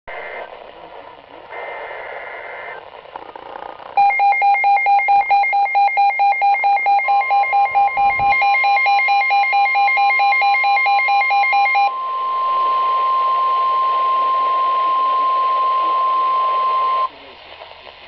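NOAA Weather Radio alert on a weather alert receiver: short data-burst tones of the SAME header, then a fast pulsing beep alarm, with the steady 1050 Hz warning tone coming in under it. The tone carries on alone after the beeping stops and cuts off suddenly near the end.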